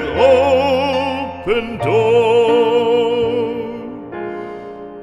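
Background music: a singer holds a long note with vibrato over a soft accompaniment, the music growing quieter toward the end.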